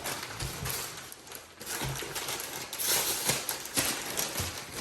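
Rustling and light clicks and knocks of items and packing material being handled while a box is unpacked, busier from about two seconds in.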